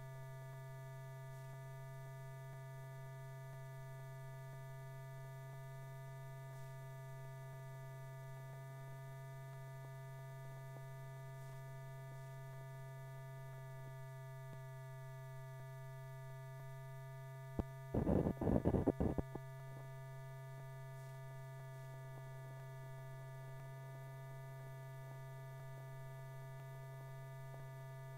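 Low, steady electrical hum with a few faint steady higher tones: the background noise of an old film soundtrack running with no narration. About eighteen seconds in comes a short burst of crackling pops lasting about a second and a half, typical of a splice or leader passing through.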